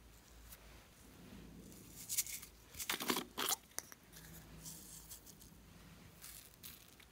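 A small plastic glitter pot being handled and its plastic lid pulled off: a cluster of crackly plastic scraping and clicks, loudest about three seconds in, followed by a few lighter rustles.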